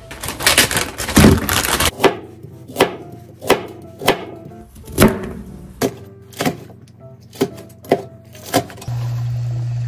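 Chef's knife cutting carrot rounds and then green chili peppers on a cutting board: single sharp knocks of the blade hitting the board, about one and a half a second. It opens with about two seconds of loud, dense noise, and a steady low hum starts near the end.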